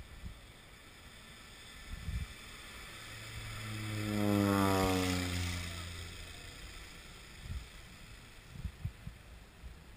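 Small propeller plane passing low overhead. Its engine and propeller drone swells, peaks about four and a half seconds in, and drops in pitch as it goes by, then fades. Short low buffets of wind on the microphone come before and after.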